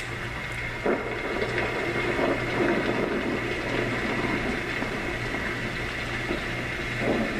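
Homedics SoundSpa clock radio playing its thunderstorm nature sound through its small built-in speaker: a steady rain-like hiss with a low rumble, and a short sharp sound about a second in.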